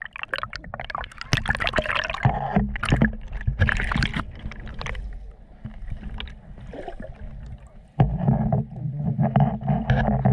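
Sea water sloshing and bubbling around a camera held just under the surface, with sharp splashes over the first few seconds. A louder muffled low rumble comes in suddenly about eight seconds in.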